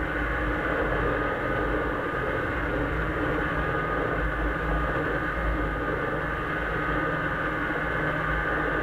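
1996 Arctic Cat Bearcat snowmobile's two-stroke engine running steadily at cruising speed, with a steady low rumble underneath.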